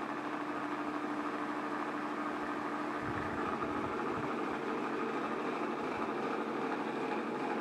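Steady mechanical hum with a few faint steady tones, and a brief low rumble about three seconds in.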